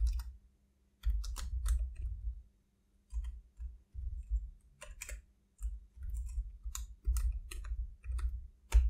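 Typing on a computer keyboard: several short runs of key clicks, separated by brief pauses.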